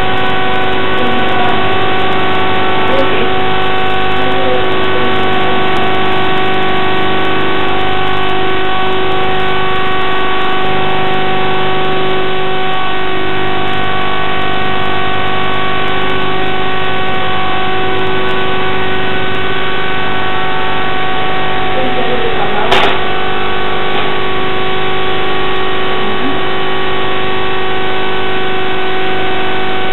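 Loud steady drone: an even noise with several held tones layered in, with one brief sharp click a little over two-thirds of the way through.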